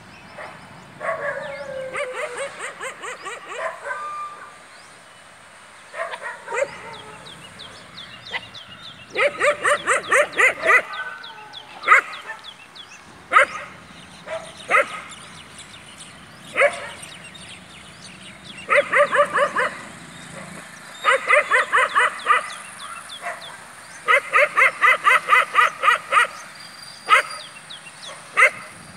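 Dogs yipping and barking in quick runs of about seven short calls a second, each run lasting one to two seconds, with single barks in between.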